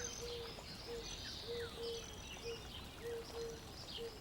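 Faint birdsong ambience: birds chirping with short downward chirps and higher whistles over a low note repeated about twice a second.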